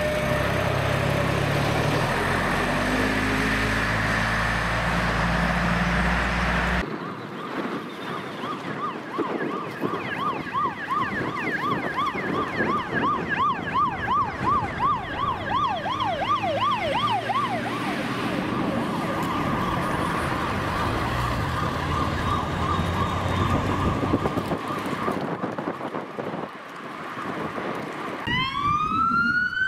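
Fire engines on an emergency run. First a heavy truck engine rumbles loudly close by. It breaks off abruptly, and then a siren sounds in a fast yelp, goes over to a steady tone, and near the end starts a rising wail.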